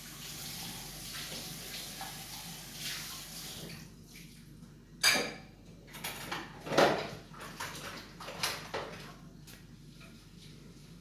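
Water running from a kitchen tap into the sink for about four seconds, then dishes and cutlery clattering as they are washed by hand, with three louder clinks.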